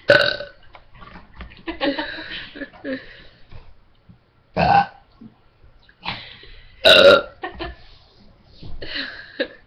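Deliberate human burps, three loud ones: at the start, about four and a half seconds in, and about seven seconds in. Quieter voice sounds fall between them.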